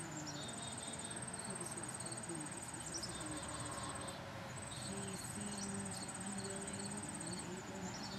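Garden insects trilling: a high, pulsing trill that runs for a couple of seconds at a time with short breaks, over fainter chirping and a faint low hum.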